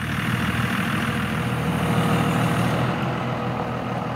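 Dodge Ram pickup truck driving slowly on a dirt road while towing a trailer: the engine runs low and steady under a wash of tyre and road noise.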